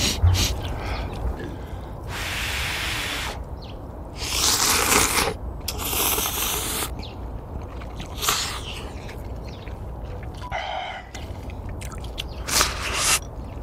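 A person slurping ramyeon noodles in several long, noisy pulls, then sipping hot broth from a bowl near the end, over a low steady rumble.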